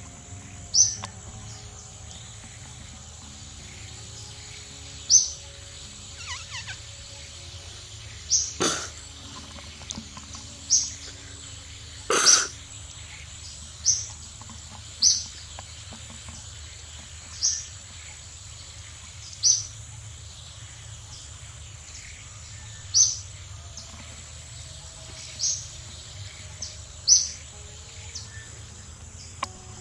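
A bird's short, high chirp repeated about every two seconds over steady outdoor background noise, with two louder, brief sounds about a third of the way in.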